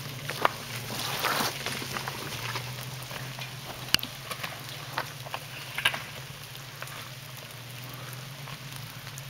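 Jeep XJ engine running with a steady low hum at crawling revs in first gear, with irregular crackling and a few sharp snaps over it, about half a second, four seconds and six seconds in.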